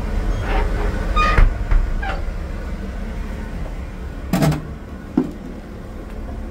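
Low steady rumble of idling diesel locomotives, with a few short squeaks and knocks early on and a louder clunk about four and a half seconds in, followed by a click, as the cab door and fittings are handled.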